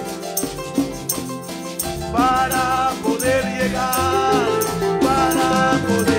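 Live Latin band music: congas and a metal shaker keep a quick, even rhythm, and a sustained melody enters about two seconds in.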